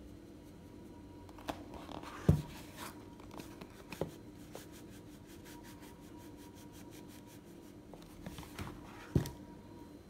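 Bicarb soda being poured and shaken from a cardboard box into a plastic measuring cup: light rustling and scraping of cardboard and powder, with a few sharp knocks, the loudest about two seconds in and another near the end.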